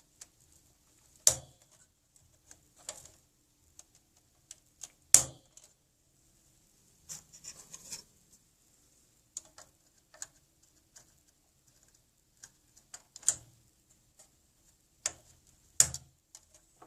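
Plastic clicks and knocks of DDR2 memory modules being pushed into the motherboard's RAM slots in a Dell OptiPlex GX620, with several sharp snaps, the loudest about five seconds in. Brief scraping and small ticks come in between as the module is handled and aligned.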